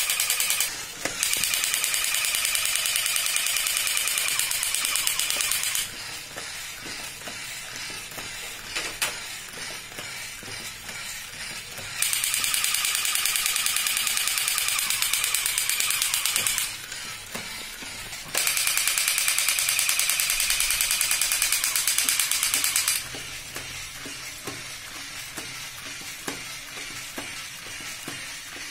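Battery-operated crawling Batman soldier toy: a harsh, rapid-fire electronic gunfire sound effect from its small speaker plays in stretches of about four to five seconds, three times. Between them are quieter spells of clicking from its crawling mechanism.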